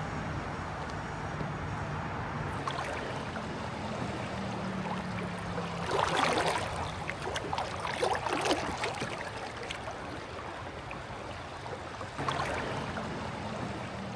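River water with splashes about halfway through and again near the end, over a steady low hum.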